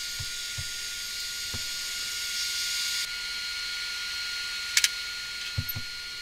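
Steady hiss with a faint high whine, over which small wood pieces and tools are handled on a workbench: a few soft knocks and a sharp double clack just before five seconds in.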